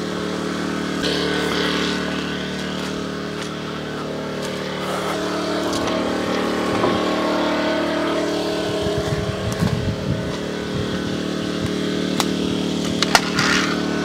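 A small engine running steadily at one speed, with a few sharp knocks near the end.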